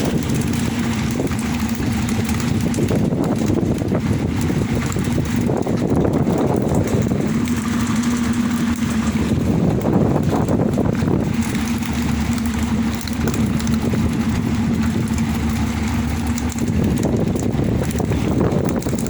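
Boat engine running at a steady speed under way, a constant hum over a rush of wind and water noise.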